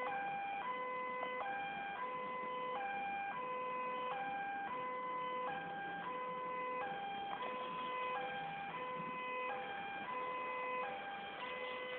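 Electronic warning alarm of a railway level crossing sounding a steady alternating two-tone (hi-lo) pattern, about three-quarters of a cycle per second, the signal that a train is approaching and the crossing is closing.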